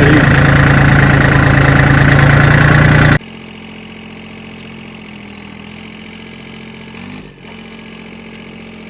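John Deere 770 compact tractor's three-cylinder diesel engine running steadily, loud and close at first, then abruptly much quieter about three seconds in.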